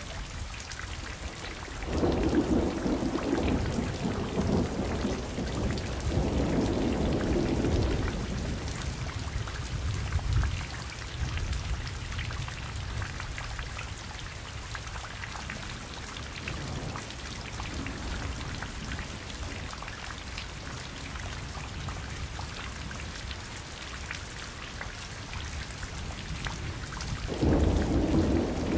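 Steady rain with thunder rumbling: a long roll swelling twice from about two seconds in, a short one around ten seconds, and another near the end.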